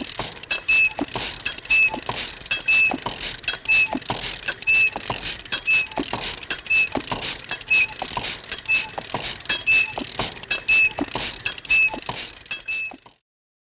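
Sound effect of quick light pattering with a short high squeak roughly once a second; it cuts off suddenly near the end.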